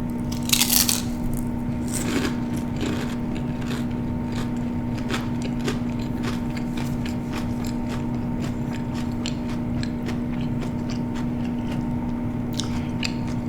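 Close-miked chewing of food, with many short wet mouth clicks and smacks and a louder one about half a second in, over a steady hum.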